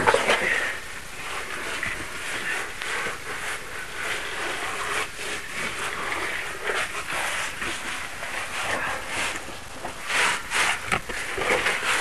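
Scraping and rustling of a caver's oversuit and gear against rock while squeezing through a tight passage, in irregular bursts, loudest near the start and again about ten seconds in.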